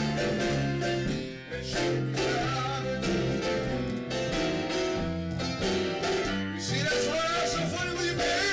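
Electric bass guitar and upright piano playing a tune together in a live jam, with strong low bass notes and a steady beat.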